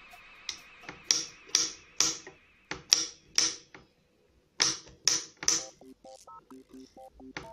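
Kitchen knife chopping mushrooms on a glass cutting board: sharp clicks about twice a second, a short pause around four seconds in, then lighter clicks. Faint background music with short plucked notes runs underneath in the second half.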